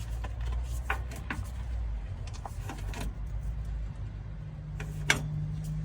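Scattered clicks and knocks of a drain pan and tools being handled under a truck's oil filter, over a steady low hum.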